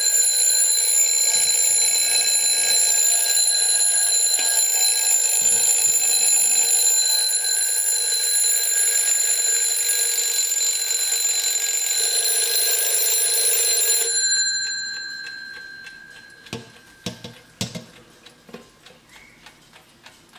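Vintage German PETER double-bell mechanical alarm clock ringing: the hammer rattles rapidly between the two chrome bells in a loud, continuous ring. About 14 seconds in the ringing cuts off and the bells ring out briefly, followed by a few light clicks and knocks.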